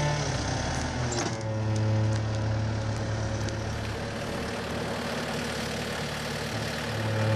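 Bobcat skid-steer loader's diesel engine running steadily while it lifts a heavy slab of wood.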